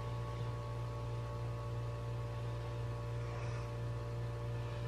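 Steady low electrical hum, mains hum with a few steady higher tones over it, and no distinct events.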